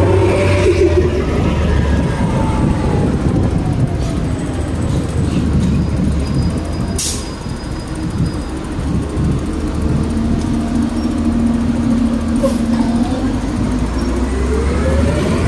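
Street traffic with a city bus running alongside: a steady low hum, with a whine that falls in pitch over the first few seconds and rises again near the end, and a single sharp click about halfway through.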